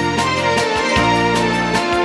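Instrumental opening of a pop song: sustained keyboard chords with percussive strokes every half second or so.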